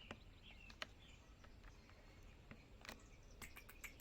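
Near silence: faint room tone with scattered soft clicks, more of them close together near the end, and a few faint short high chirps.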